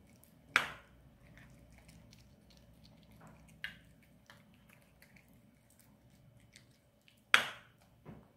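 A metal fork clinks sharply on a ceramic plate twice, about half a second in and near the end, with a couple of lighter taps in between. Under it are faint wet ticks of a Maltese dog chewing and licking soft food from the plate.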